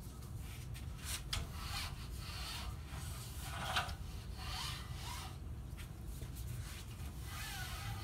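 Cloth wiping a window screen door: irregular rubbing strokes, the strongest a little past the middle, over a steady low rumble.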